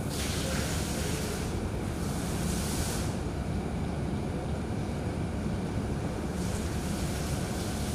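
Steady low rumbling background noise with a hiss that swells and fades several times.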